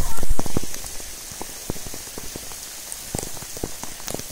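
Torrential rain falling, with many drops landing close by as sharp, irregular taps over a steady hiss. A few louder low thumps in the first half second.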